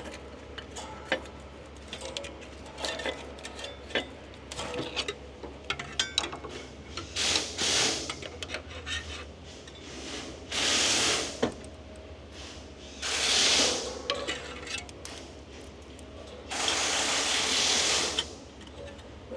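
Hand tools working the steering brake adjuster nuts and shoes: scattered metallic clicks, ticks and ratcheting. Four louder bursts of hissing noise come in the second half, the last and longest about two seconds.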